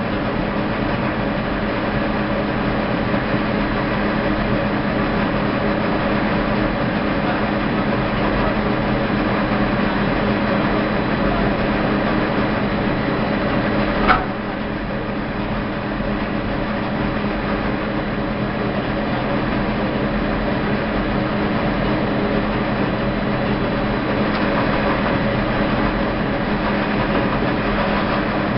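Rope making machine for 4–12 mm rope running steadily, its take-up spool winding finished rope: a constant mechanical hum. A single sharp click about halfway through.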